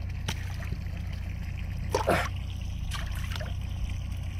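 Sea water splashing and trickling in a few short bursts over a steady low hum.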